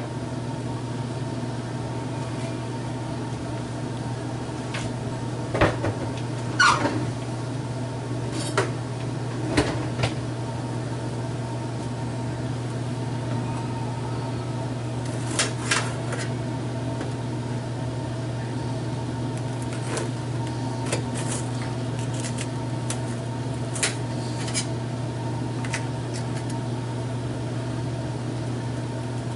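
A steady low machine hum, with scattered short clicks and crinkles as a plastic package of jalapeños is opened and a jalapeño is sliced with a small knife.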